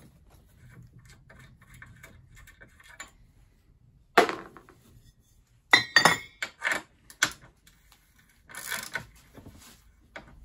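Faint rapid clicking of a socket ratchet working the brass valve of a nitrous oxide cream charger flask clamped in a vice. This is followed by a sharp metallic knock about four seconds in and clusters of metal clinks and knocks around six and nine seconds in, as tools and metal parts are handled.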